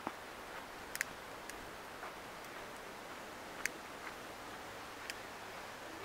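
Faint steady background hiss with a few sharp, isolated clicks, the loudest about a second in and again past the middle.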